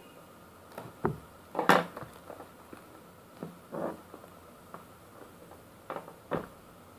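Scissors snipping and thin plastic shrink-wrap crinkling as it is cut and peeled off a phone box, with the cardboard box knocking and sliding on the table. The sounds come in short separate crackles and clicks. The loudest is just under two seconds in.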